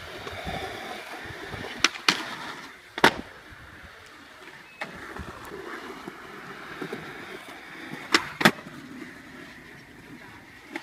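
Skateboard wheels rolling on concrete, broken by sharp clacks of the board hitting the ground: a quick pair about two seconds in, a single one a second later, and another quick pair later on.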